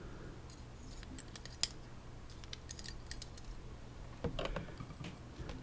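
Light metallic clicks and tinkles of small lock pins, springs and tools being handled as a dimple lock is taken apart, a scattered run of clicks followed by a few duller knocks a little past four seconds in.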